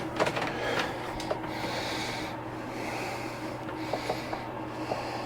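Hands working plastic filament tubing: a run of rubbing, scraping swishes about a second apart with a few light clicks, over a steady low hum.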